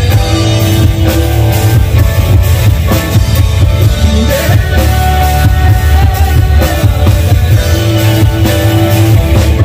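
Live band playing an old Hindi film song through stage speakers: drum kit, keyboard and electric guitar, loud and steady with heavy bass and held keyboard notes.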